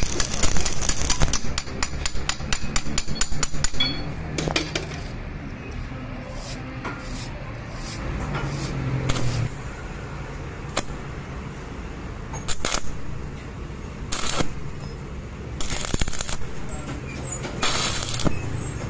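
Stick arc welding: a dense, steady crackling for the first few seconds, then a series of short crackling bursts as the electrode strikes the arc again and again.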